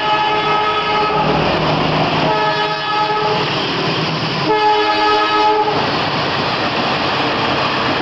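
Train horn sounding Semboyan 35, the Indonesian railway horn signal, in repeated multi-tone blasts: one ends about a second in, a longer one runs from about two seconds in and goes straight into a shorter one. Rushing train noise fills the gaps between blasts.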